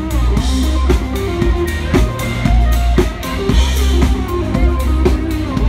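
Band music with a drum kit keeping a steady beat, about two hits a second, over bass and guitar.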